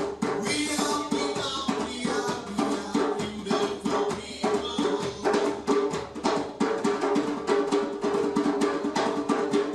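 Live percussion playing a fast, even groove of drum and wood-block-like strokes, several per second, over steady held pitched tones.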